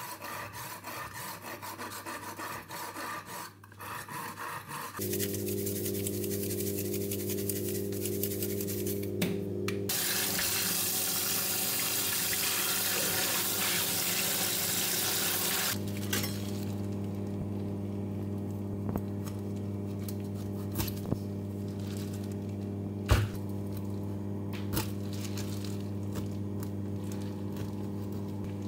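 Plastic cling film crackling as it is smoothed over a chopping board. Then a kitchen tap runs into a sink for about six seconds while fish are rinsed. Afterwards a steady low hum carries on, with a few light knocks of a knife on the board, one sharper than the rest about 23 seconds in.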